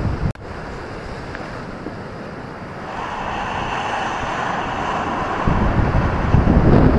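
Ocean surf breaking on a beach. A wave's hissing wash swells from about three seconds in, and a heavier low rumble of breaking surf, mixed with wind buffeting the microphone, comes in near the end.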